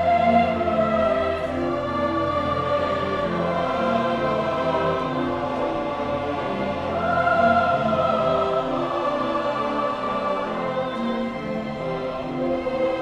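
A large choir of about 150 voices singing held, overlapping chords with a string orchestra (violins, cellos, double bass), swelling louder about seven seconds in.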